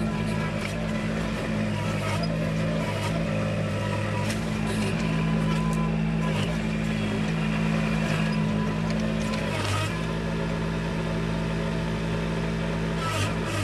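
Diesel engine of a Kubota tracked machine running steadily while clearing land, with scattered knocks and clanks. The engine note shifts briefly about ten seconds in.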